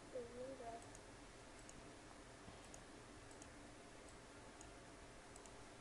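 Near silence: room tone with a few faint, scattered clicks of a computer mouse, and a brief faint voice in the background within the first second.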